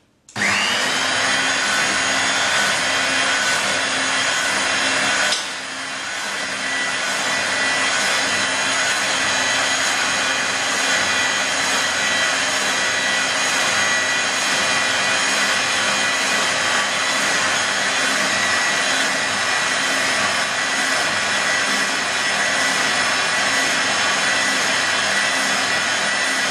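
Eibenstock electric paddle mixer switched on and running, its motor giving a steady whine as the paddle stirs a sandy mortar mix in a tub. About five seconds in the sound drops suddenly, then builds back up to a steady level.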